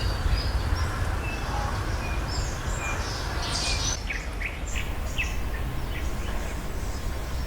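Small birds calling: short high chirps and whistles over a steady low background rumble. About four seconds in, the calls change to quick downward-sliding notes.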